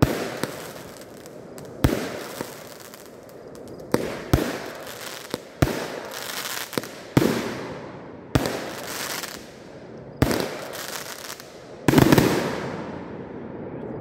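Aerial fireworks bursting, a sharp bang every second or two, each trailing off in a crackling hiss; the loudest burst comes near the end.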